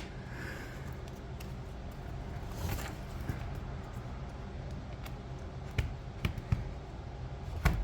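A prying tool scraping and clicking along the seam of a laptop's plastic bottom case, with a few sharp clicks in the last couple of seconds as it works the case's clips. A low steady hum sits underneath throughout.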